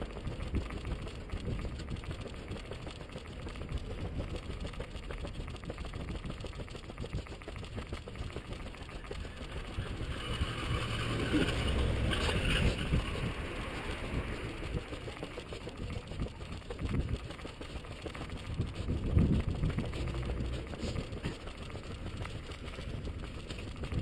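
Street traffic mixed with a steady low rumble of wind and movement on a camera carried by a runner, swelling louder about ten to thirteen seconds in, with a few brief thumps later on.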